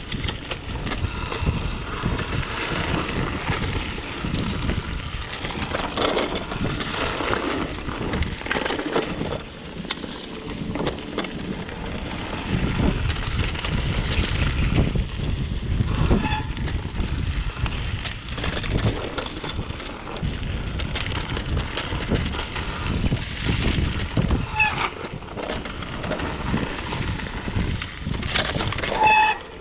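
Mountain bike ridden down a dirt trail: continuous rough rumble and rattling from the tyres and bike over rough ground, mixed with wind on the microphone.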